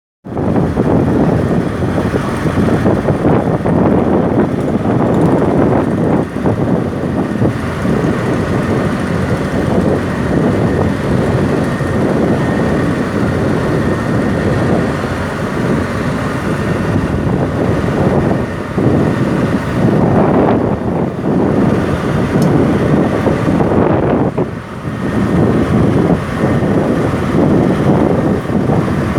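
Tugboat engines running steadily, heard as a loud, even rumble with wind buffeting the microphone.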